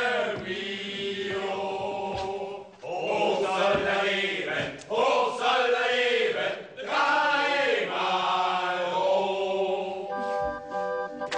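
A group of voices singing a song in several drawn-out phrases with short breaks between them. About ten seconds in, instrumental music with clear held notes comes in.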